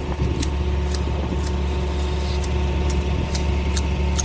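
Manual hedge shears snipping through a hedge, a sharp clipping click about every half second, over the steady low hum of an idling truck engine.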